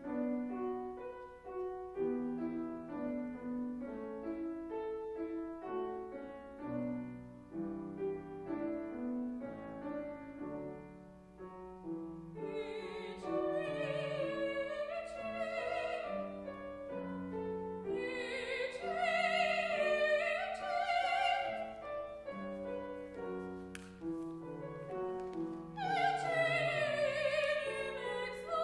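Grand piano playing a steady classical accompaniment alone at first; about halfway through, a female classical singer comes in over it, singing in an operatic style with a wide vibrato in phrases that grow louder toward the end.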